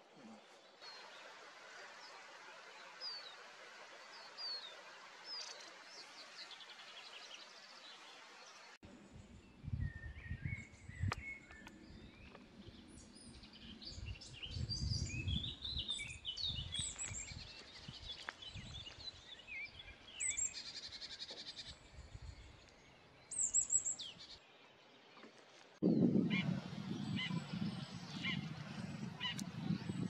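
Songbirds singing and calling in short high chirps and whistles: faint and sparse at first, busier from about a third of the way in. From then on, wind buffets the microphone in an uneven low rumble, heaviest near the end.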